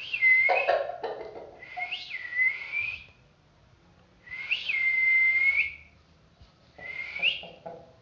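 A person whistling four drawn-out whistles, each flicking up sharply in pitch and then holding a steady note, with a short lower-pitched sound under the first one.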